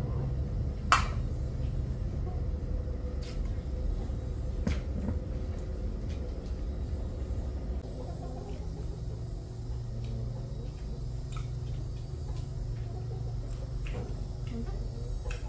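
Scattered light clicks of tableware during a meal over a steady low rumble, with one sharper click about a second in.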